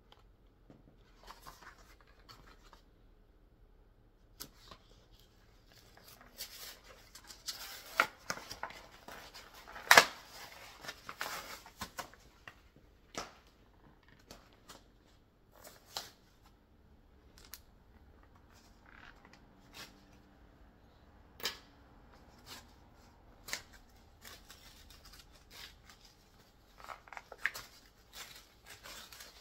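A plastic blister pack on a card backing being handled and opened by hand: scattered clicks, scrapes and crinkles, loudest about eight to ten seconds in.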